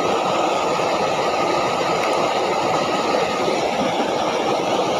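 Steady rush of water flowing in a shallow, muddy ditch, a continuous even noise with no breaks.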